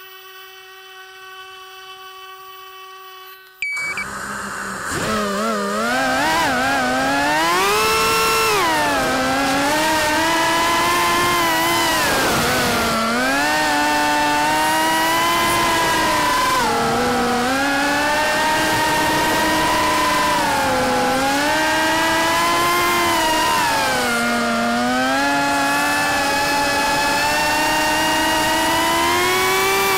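FPV quadcopter's electric motors. At first a faint steady hum, then about four seconds in they spool up sharply to a loud whine that keeps rising and falling in pitch with the throttle, over a rush of propeller wash, as heard from the quad's own onboard camera.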